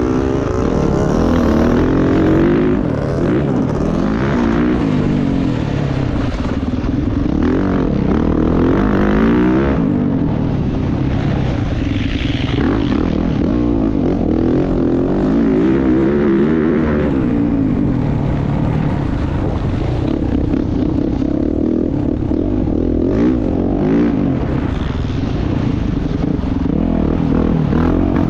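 Dirt bike engine ridden hard, revving up and dropping off again and again, its pitch rising and falling every few seconds as it is ridden at race pace.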